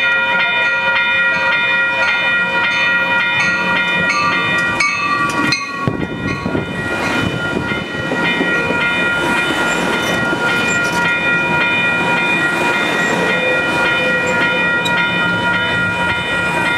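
Railroad crossing bell ringing steadily in quick, even strokes as an Amtrak Pacific Surfliner double-deck passenger train pulls into the station. From about six seconds in, the rumble and rattle of the bilevel cars' wheels on the rails grows under the bell as the train rolls past.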